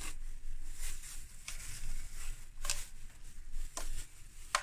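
Plastic bag rustling as it is fitted over a hand mixer and its bowl, in a few short crinkles about a second apart.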